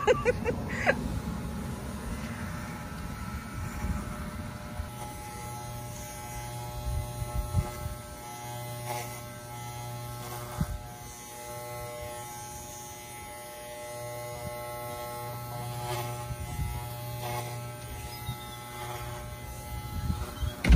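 Corded electric dog clippers running with a steady buzzing hum as they cut through a dog's long shaggy coat.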